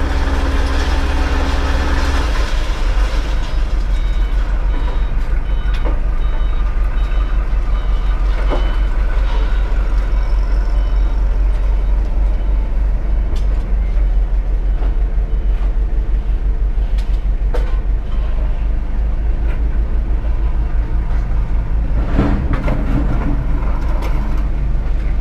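A vehicle engine running steadily under way, with a strong low rumble and a change in engine note about two seconds in. Faint, repeated high beeping is heard from about four to twelve seconds in.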